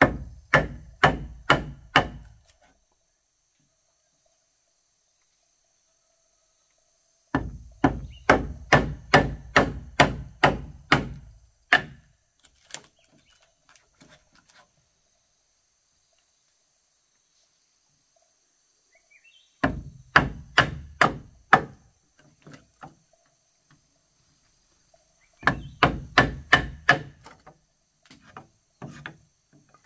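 Hammer blows on wood, most likely nailing floor boards or trim strips: four runs of quick, even strikes, about two a second, with pauses of several seconds between runs.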